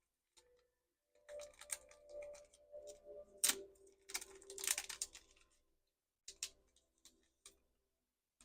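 Trading card pack and cards being handled: a few seconds of crinkling and irregular clicks, then a handful of single clicks.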